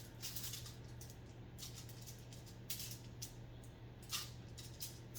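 Five or six short, faint hissy rustles from raw pork spare ribs being seasoned by hand, over a steady low hum.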